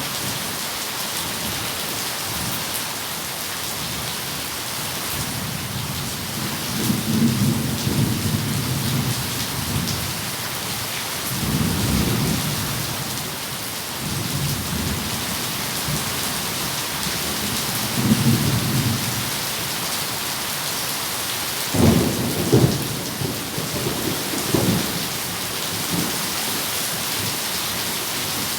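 Thunderstorm: steady heavy rain throughout, with thunder rumbling several times and sharper, louder cracks of thunder about three-quarters of the way through.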